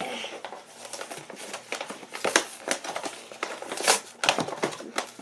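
Action figure packaging being opened by hand: irregular crinkling, crackling and rustling as the box and wrapping are handled and torn.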